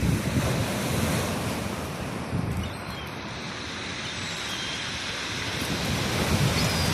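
Surf washing onto a beach with wind buffeting the microphone; the wash eases about two and a half seconds in and builds again near the end.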